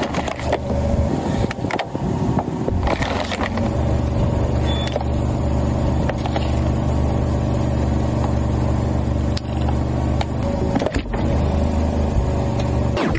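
A car's engine running at low speed as the car rolls forward, with sharp cracks and crunches of objects breaking under the tyres scattered through it.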